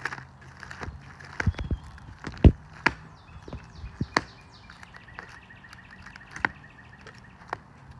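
Plastic pocket pages of a trading-card binder being flipped over, each turn a crackling slap at irregular intervals, the loudest about two and a half seconds in.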